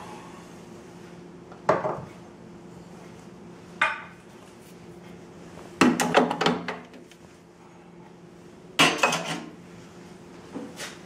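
Metal knocks and clatter of an espresso portafilter being handled, tamped and locked into a Rancilio Silvia's group head, and a mug set down on the drip tray. There are single knocks about two and four seconds in, longer clatter around six and nine seconds in, and light taps near the end, over a steady low hum.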